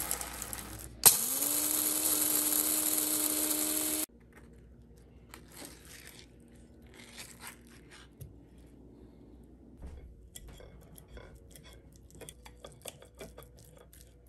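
Hamilton Beach electric blade coffee grinder switched on about a second in, its motor whirring up in pitch and then grinding whole coffee beans steadily for about three seconds before cutting off suddenly. After that, soft clicks and scrapes of a spoon scooping avocado and a fork mashing it on a ceramic plate.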